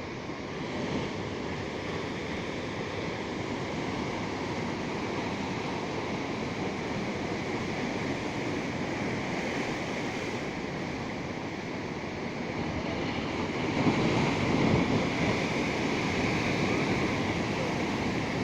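Ocean waves breaking and washing on the shore, a steady surf with one wave building louder about 14 seconds in, with wind on the microphone.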